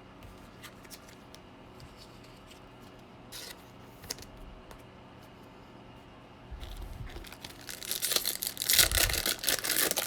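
A trading-card pack's foil wrapper being torn open and crinkled, a loud crackling that starts about six seconds in and runs for several seconds.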